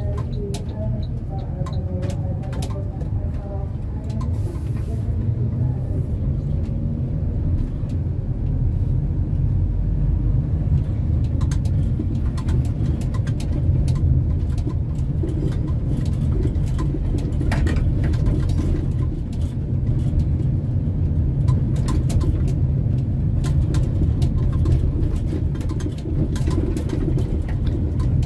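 Car driving, heard from inside the cabin: a steady low rumble of engine and road noise, with occasional light clicks and rattles.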